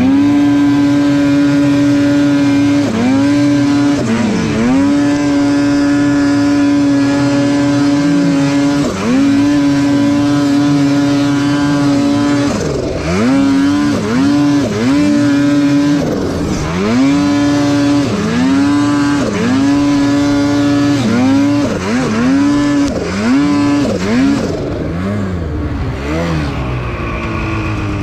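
Ski-Doo mountain snowmobile's two-stroke engine running hard under load in deep powder, holding a steady high pitch for seconds at a time and repeatedly dipping and climbing back as the throttle is eased and reapplied. In the last few seconds the revs drop lower and run unevenly as the sled bogs down in the snow.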